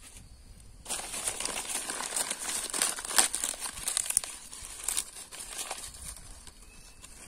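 Dry leaves crumpled and crinkled in the hands, a dense crackly rustle that starts about a second in and thins out after about five seconds.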